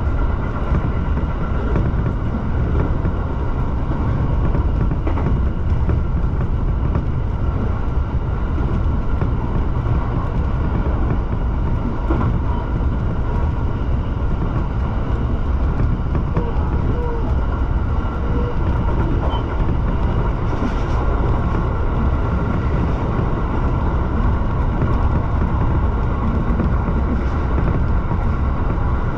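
Shinano Railway SR1 series electric train under way, heard from the driver's cab: a steady low rumble of running noise with a faint steady whine over it.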